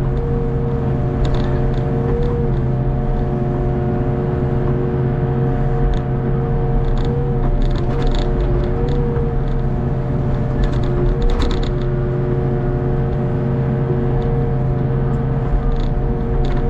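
Hitachi ZX48U mini excavator working: the diesel engine runs steadily under load with a whine from the hydraulics that dips briefly in pitch several times as the arm and bucket move, and a few sharp clanks and knocks as the bucket digs in wet mud.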